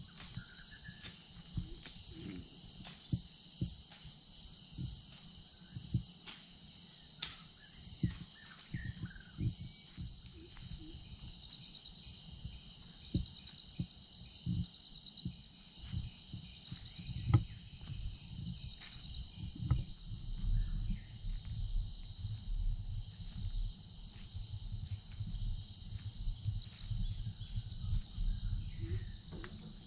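Steady insect chorus, several shrill high tones held together without a break. Frequent low thumps run under it, and in the second half a low rumble comes in.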